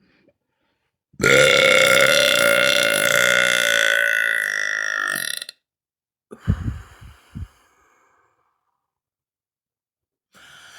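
One long, loud, drawn-out human burp lasting about four seconds, holding a fairly steady pitch. About a second after it ends come three short low sounds.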